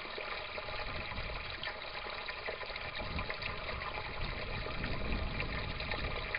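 Steady trickling and pouring of water in a small aquaponics grow bed, the pump's inflow refilling it while the U-siphon is still running and draining it.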